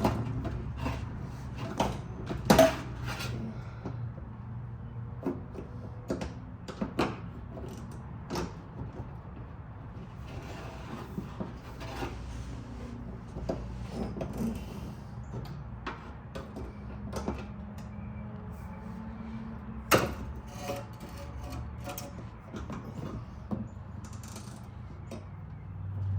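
Scattered clicks, knocks and clanks of tools and parts being handled during work on a car, over a steady low hum. The two sharpest knocks come a few seconds in and again late.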